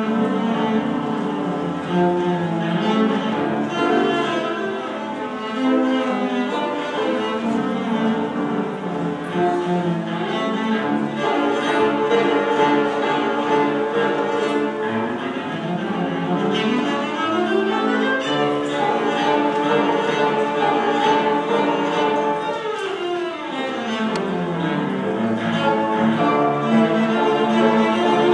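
Cello played with the bow, a continuous melodic line of sustained notes. About two-thirds of the way through it sweeps up in a quick rising run, and a few seconds later it runs back down.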